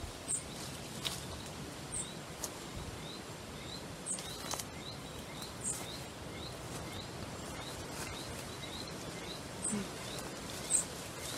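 Outdoor ambience of small animals calling: a short rising chirp repeats about twice a second over a steady hiss, with a higher, sharper chirp every second or two and a few faint clicks.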